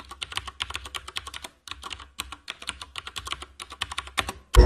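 Rapid keyboard-typing clicks, a sound effect laid over an animated logo intro, with a faint low hum beneath and a couple of brief pauses. The clicks stop just before the end, where a loud low hit starts the music.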